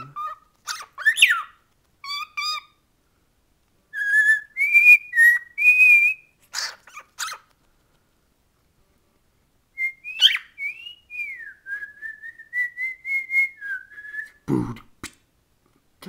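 Male cockatiel whistling and chirping at its reflection: a string of short chirps and whistled notes, a pause of about two seconds, then a longer warbling whistle. A short bump near the end.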